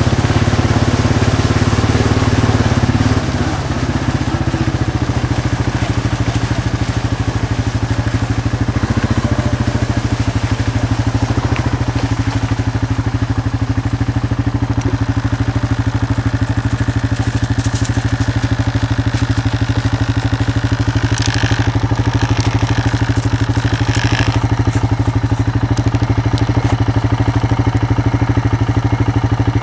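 A small vehicle engine running at a steady speed, with a slight change in its note about three seconds in. A few short, sharp sounds come through about two-thirds of the way in.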